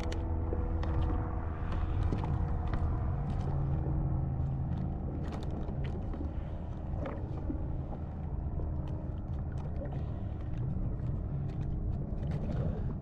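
Steady low engine drone, with scattered light clicks and rattles from a landing net and fishing gear being handled.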